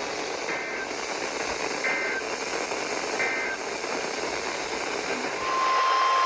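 NOAA Weather Radio broadcast over a hissing, static-filled feed. Three short two-tone SAME data bursts come about a second and a half apart, and then the steady 1050 Hz weather alert tone starts near the end. Together they are the digital header and alarm that announce a new warning.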